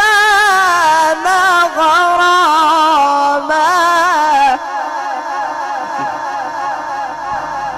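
A male Qur'an reciter's voice, amplified through a sound system, holds a long melodic tajweed phrase with quick warbling ornaments. About four and a half seconds in the voice breaks off, leaving a quieter fading echo.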